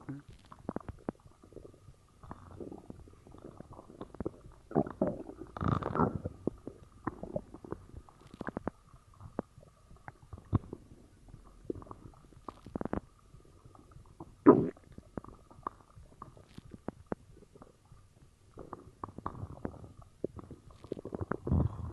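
Human stomach gurgling and rumbling, with the cola just drunk sloshing in the gut: irregular bubbly gurgles and short squeaks. There is a louder churning stretch about five to six seconds in and one sharp, loud gurgle a little past halfway.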